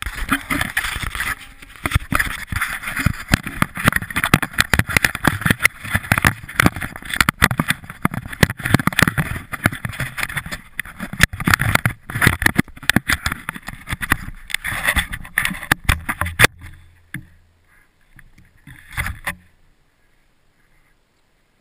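Snowmobile riding through deep snow, heard muffled through a helmet-mounted action camera: a dense rumble with many rapid knocks and bumps. It dies away about sixteen seconds in, with one short burst near the end before it goes quiet.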